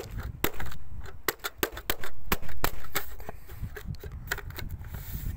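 Irregular sharp clicks and taps of a plastic louvered exhaust vent cover being handled and pressed into place, loudest about two to three seconds in, over a low rumble.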